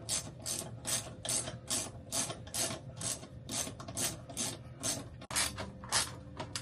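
Ratchet wrench being worked back and forth to back out a long air-conditioner mounting bolt, clicking in regular strokes about two and a half times a second.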